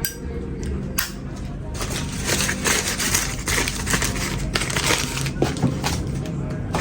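Packaging being handled and unwrapped: a steady run of quick crinkling and crackling.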